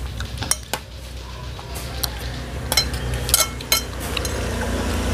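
Metal spoons clinking and scraping against ceramic plates during a meal: a string of sharp clinks with a short ring. Underneath is a steady low rumble.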